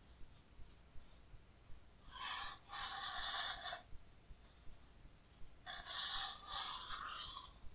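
A large, heavy coffee-table book page being lifted and turned by hand, the paper sliding and rustling in two long stretches of about two seconds each.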